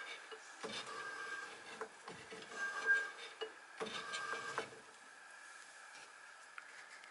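A homemade keyway cutting tool, ground from a broken twist drill, is drawn in strokes through the bore of a yellow-metal flywheel casting mounted on a lathe faceplate. There are four short scraping strokes with a faint squeal, about a second apart, then only a faint steady hum for the last couple of seconds.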